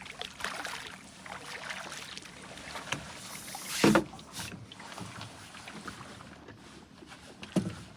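Water splashing and sloshing around a small fishing boat as a hooked trout is played towards the net, with a loud splash about four seconds in and a shorter one near the end.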